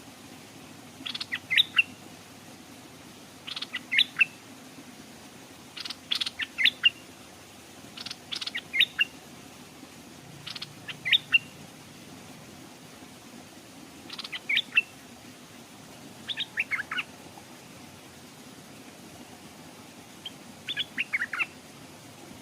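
Stripe-throated bulbul singing: eight short phrases of quick notes, each under a second long, repeated every two to three seconds.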